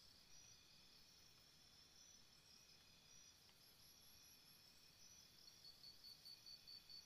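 Near silence with faint, high-pitched insect chirping, pulsing about five times a second; it fades in the middle and picks up again near the end.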